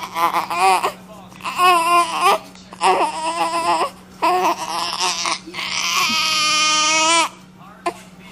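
Baby babbling, a run of about five high-pitched vocal sounds with short gaps, the last one long and drawn out.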